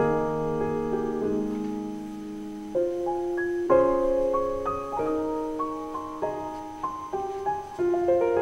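Background music: solo piano playing a slow melody over held chords.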